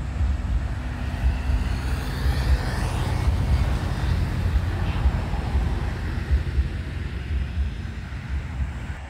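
Wind buffeting the microphone, a steady low rumble. A broad hiss swells a couple of seconds in and fades again after about five seconds.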